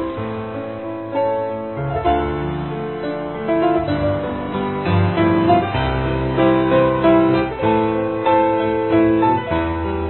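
Piano music with held notes and slowly changing chords.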